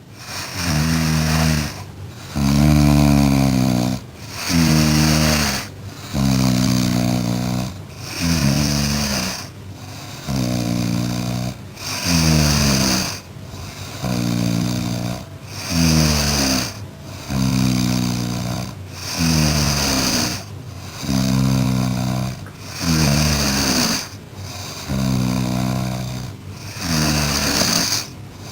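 Elderly domestic cat snoring loudly in deep sleep: a regular rasping snore about every two seconds, each snore falling in pitch, with a hissy breath between snores.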